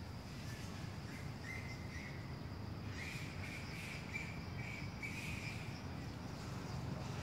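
Tropical outdoor ambience: a steady high insect drone, with a run of short, high bird chirps about three to five seconds in.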